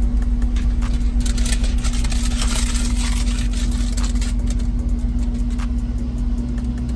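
Music playing through the Chevrolet Tahoe's speakers from a newly installed Android head unit, heard inside the cabin. Under it runs a steady low hum, and there is a stretch of high hiss about a second in.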